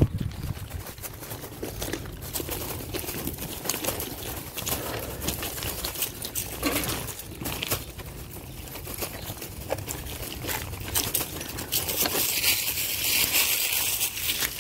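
Footsteps crunching on dry leaves and gravel, an irregular run of crackles and crunches, with a hiss that grows louder over the last few seconds.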